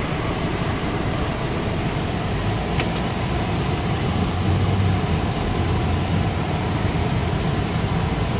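Heavy rain falling on a moving car, heard inside the cabin: a steady loud wash of rain noise over the low rumble of the car and its tyres on a wet road.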